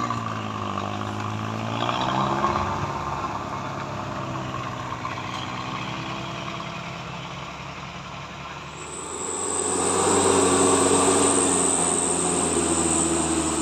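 Vehicle engines going by on a steep climb. A small pickup's engine runs past first, its pitch rising a second or two in. Then a light truck's engine grows louder from about nine seconds in as it climbs, with a steady high hiss over it.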